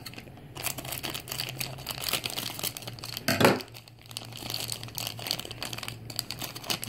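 Thin clear plastic packaging bag crinkling in irregular crackles as it is handled and a small figure is taken out of it, with one louder, duller rustle about halfway through.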